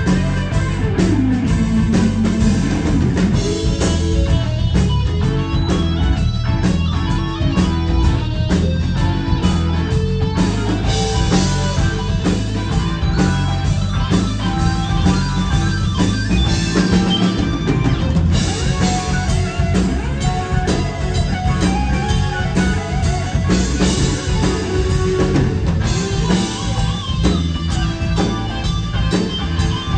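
Live rock band playing: electric guitar, bass guitar, drum kit and keyboards, heard from the audience.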